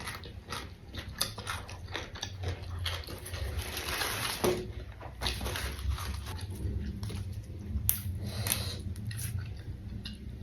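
Close-up chewing and crunching of raw vegetables, in irregular crisp bites and chews.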